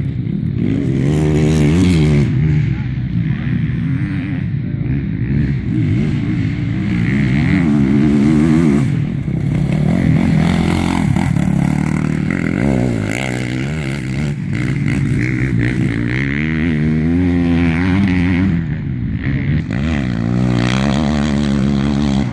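Enduro motorcycles racing past one after another on a dirt track, their engines revving up and down in pitch through the turns and gear changes, getting louder as each bike passes close.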